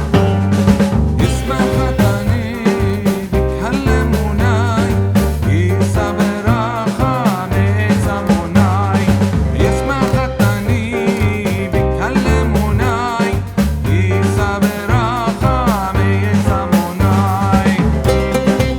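Background music: an upbeat band piece with drums, bass and a wavering melody line over a steady beat.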